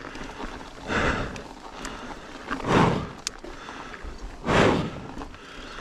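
A mountain biker breathing hard on a steep climb: three heavy exhalations about two seconds apart.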